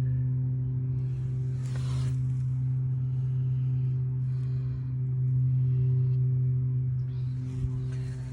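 A steady low hum with a few fainter overtones above it, and brief hissy noises about two seconds in and again near the end.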